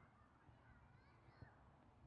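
Near silence: faint outdoor background with a few faint, distant high calls.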